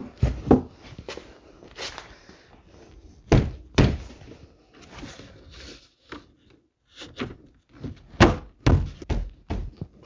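A 2013 Mercedes-Benz C300's door trim panel being pressed and knocked onto the door so its retaining clips seat: a string of dull thumps and knocks, the loudest a few near the start, two about three and a half seconds in and one about eight seconds in.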